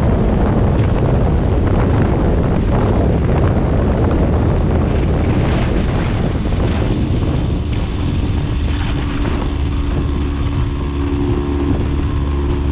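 Phantom ultralight rolling on the ground: heavy wind buffeting on a wing-mounted microphone over the steady drone of its engine and propeller. About halfway through the wind noise eases and the engine's steady running tone comes through more clearly.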